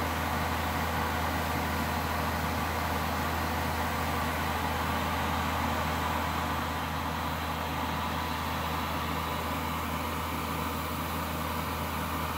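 ER2 electric train giving off a steady low hum with even noise over it, and no clicks of wheels over rail joints; it eases slightly in the second half.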